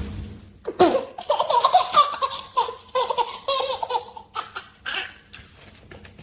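A baby laughing in a string of short high-pitched bursts, starting about a second in and dying away after about five seconds.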